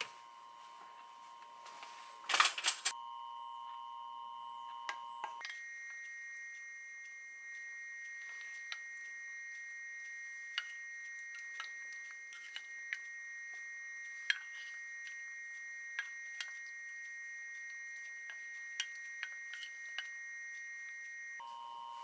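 Light clicks and taps of food and utensils being set onto a plate, with a short burst of clatter about two and a half seconds in. Under them runs a steady high electrical whine that jumps higher about five seconds in and drops back near the end.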